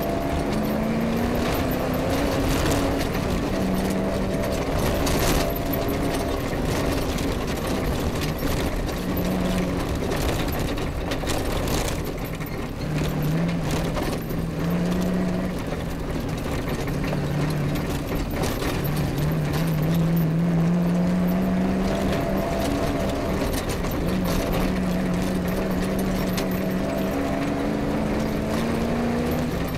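Off-road rally vehicle's engine heard from on board while driving a rough track at pace. The engine note repeatedly climbs and drops back as it goes through the gears, over steady road and chassis noise with occasional knocks from bumps.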